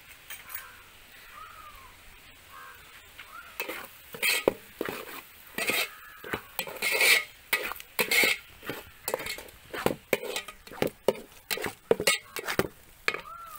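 A wooden spatula stirs onions and spice powders frying in a steel pot, scraping and knocking against the pot's sides and bottom. The strokes come fast and irregular from about three and a half seconds in.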